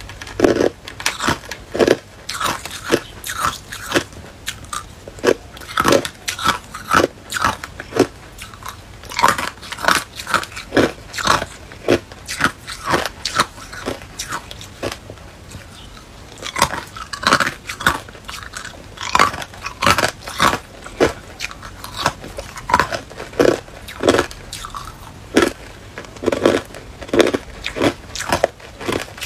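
Hard clear ice cubes being bitten and chewed: a fast, irregular run of sharp crunches, easing off briefly about halfway through before picking up again.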